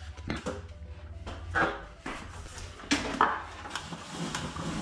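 A few separate knocks and clunks as a step ladder is picked up and handled, with a faint low hum underneath.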